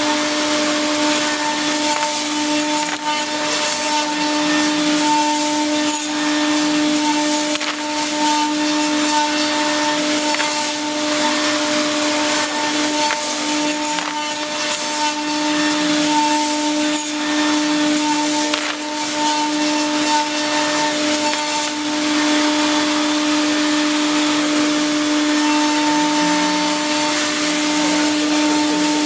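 Hurco VMX42HSi vertical machining center rough-milling aluminum with a Millstar cutter: a steady tone of unchanging pitch over a constant hiss, with scattered faint ticks.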